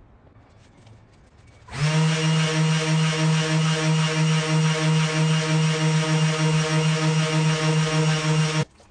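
Electric random orbital sander running against a wooden block: a steady motor hum with a slight pulse and a gritty sanding hiss. It comes in suddenly about two seconds in and cuts off abruptly near the end.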